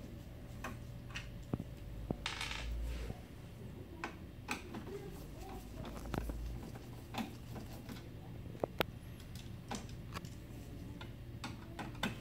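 Irregular small clicks and ticks of a hand screwdriver working at the plastic rear cover and screws of an HP M452 laser printer, with a short scraping rustle a little after two seconds in.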